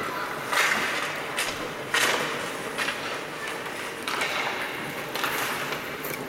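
Ice hockey skates scraping on the ice in several short swishes, with a sharp knock about two seconds in from a stick or puck.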